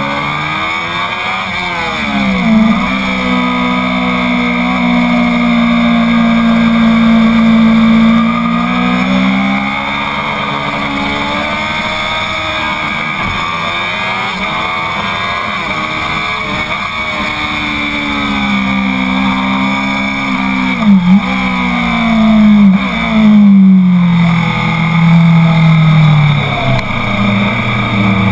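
Honda CBR 1000 sport bike's inline-four engine at track pace, heard from on board: revs climbing and falling through the gears, with quick drops at a few shifts, over steady wind rush.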